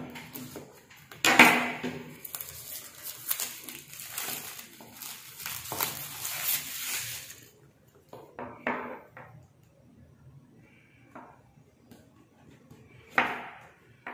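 Kitchen knife slicing through the seal on a small cardboard box on a stone countertop: a sharp knock about a second in, then several seconds of scraping and rustling of blade on cardboard. Near the end, softer scrapes and a knock as the cardboard box is slid open.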